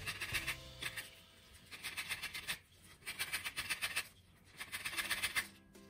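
Orange peel being grated for zest: several bursts of quick rasping strokes against a grater, with short pauses between them.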